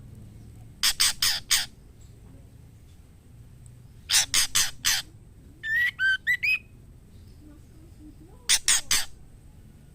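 Female white-rumped shama calling: three quick bursts of four harsh, rasping notes, with a short phrase of four rising whistled notes between the second and third burst.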